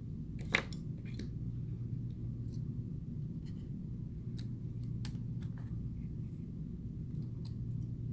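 Scattered small clicks and ticks of metal repair tools prying and lifting the metal shields off an iPhone XR logic board, the sharpest about half a second in, over a steady low hum.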